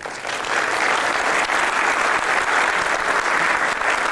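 Audience applauding steadily, many hands clapping, starting at once as the speaker finishes her talk.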